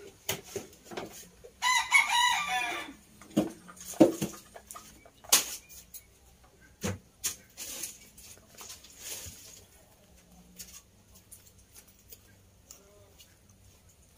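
A rooster crows once, starting about a second and a half in and lasting just over a second, among scattered sharp clicks and knocks.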